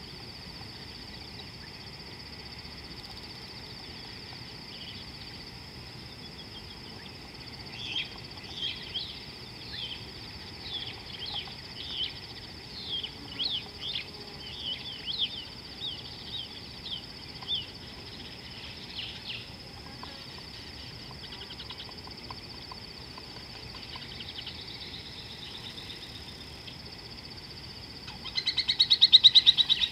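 Wild birds chirping in a quick run of short, sharp calls from about eight seconds in until about eighteen, over a steady high-pitched whine. Near the end comes a louder, rapid pulsing call.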